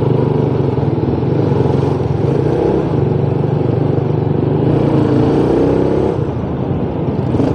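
Motorcycle engine running steadily at riding speed, heard from the rider's seat with wind and road noise, its pitch easing up and down a little a couple of times.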